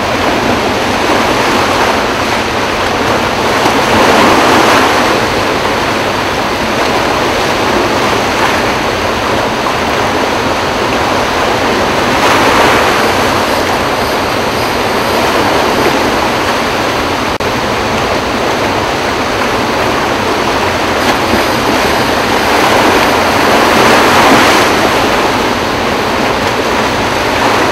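Floodwater pouring through the dam's eight open spillway gates, about 44,000 cubic feet a second: a loud, steady rush of water that swells a few times.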